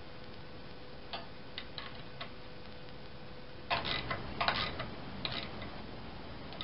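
Hand wrench clicking and scraping against the pump housing bolts as they are tightened. A few light metallic ticks come first, then a louder flurry of clicks and scrapes about four seconds in.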